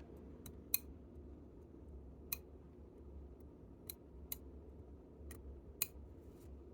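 Faint, irregular small metal clicks, about seven in all, of hand tools working on a watch movement while the setting lever is being worked out, over a low steady hum.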